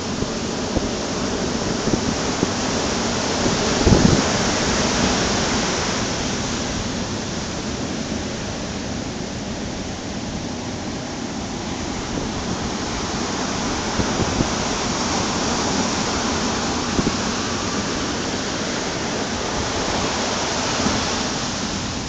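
Ocean surf breaking and washing up a sandy beach: a continuous rush that swells and eases, with a low gust of wind on the microphone about four seconds in.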